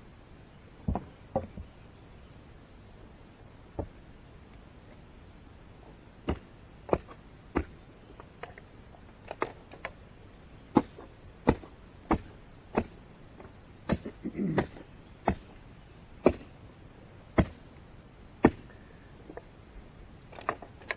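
A digging tool striking into rocky ground again and again, about twenty sharp blows at an uneven pace, sparse at first and then coming every half second to a second, with a brief scrape of rock and soil in the middle.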